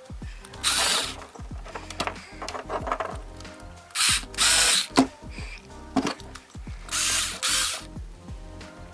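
Small electric screwdriver driving screws in five short runs: one about a second in, then two pairs around four and seven seconds, fastening the front steering assembly to the servo horn.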